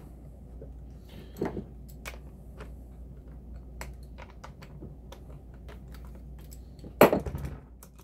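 Light, irregular clicking and tapping of metal on metal as hand tools and fingers work a chainsaw's bar, chain and tension screw, with a louder knock about seven seconds in. The chain is being loosened because it has set too tight.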